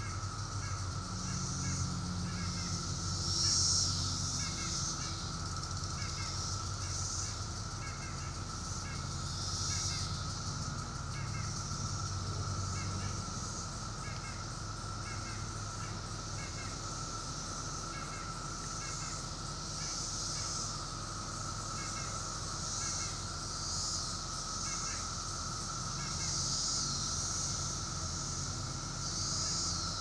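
Chorus of 17-year periodical cicadas: a steady, continuous drone with higher buzzing that swells and fades now and then. A bird calls in short, repeated notes over it.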